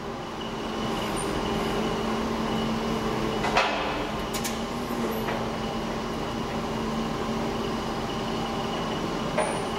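Clark forklift running and moving a loaded rack, a steady mechanical drone with a hum and a faint high whine, and a sharp metal clank about three and a half seconds in, with lighter clicks near the end.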